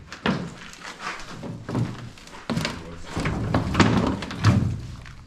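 Footsteps and thunks on loose wooden boards and debris, with several heavy knocks in the second half.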